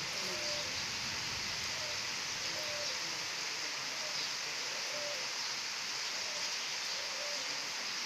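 Steady rain falling on wet stone paving, an even hiss with no breaks.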